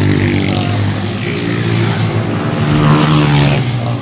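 Road traffic with motor vehicle engines running close by; one vehicle passes near the end, its pitch falling as it goes by.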